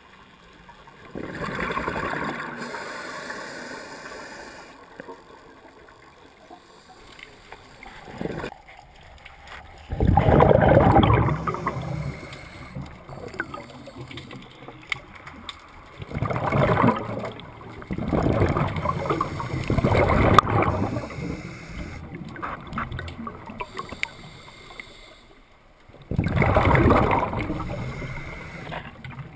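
Scuba diver's exhaled bubbles from a regulator underwater, bubbling in several bursts of a second or two each, with quieter gaps of a few seconds between breaths.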